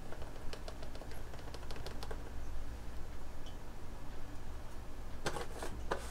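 Light clicks and taps of a plastic paprika shaker being shaken over a steel bowl of raw oxtails, with a short rattling shake about five seconds in.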